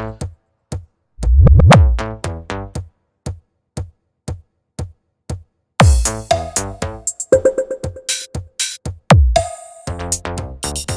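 Electronic bass-heavy dance remix: drum-machine beats with deep, sweeping bass booms, sparse at first and filling out with faster hits and a cymbal-like hiss about halfway through.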